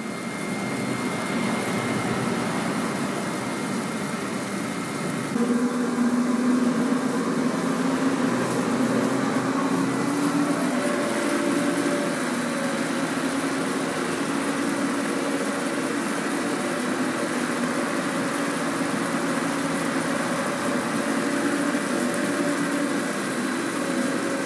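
Electric treadmill running at full power, a steady motor hum with belt noise. About five seconds in it gets louder, with a stronger steady hum.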